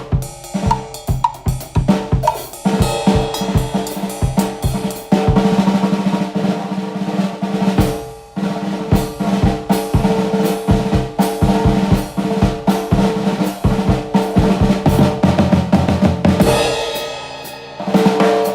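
Miked drum kit being played: fast snare and bass-drum strokes in busy grooves and rolls. The playing breaks off briefly about eight seconds in, then picks up again.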